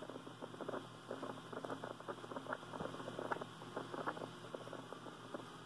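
Mooney M20C's four-cylinder Lycoming engine idling while taxiing, a faint steady low hum heard through the headset intercom, with irregular crackling clicks over it.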